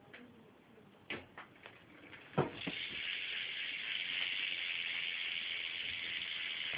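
A few knocks, then about two and a half seconds in the rear hub of a Fit Inman Two BMX bike starts ticking as the rear wheel spins, a steady fast high buzz. The hub is pretty quiet, though it sounds pretty funny.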